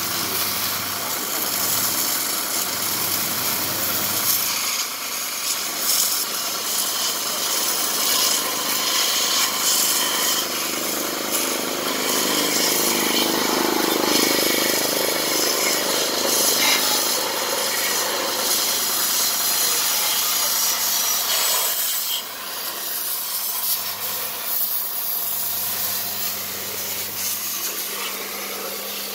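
A high-pressure water jet spraying against a Kubota RT120 walking tractor's engine and mud-caked cage wheels: a loud, steady hiss of spray, with a low machine hum underneath. The spray noise eases off about three-quarters of the way through.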